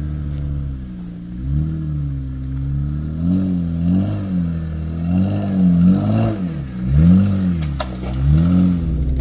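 Off-road vehicle engine revved in a series of throttle blips, its pitch rising and falling six or seven times as the vehicle works over rough trail.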